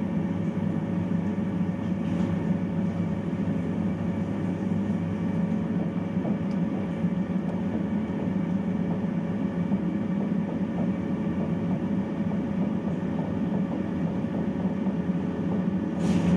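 Bathroom boiler (water heater) running: a steady low rumble with a constant hum, and a brief hiss near the end.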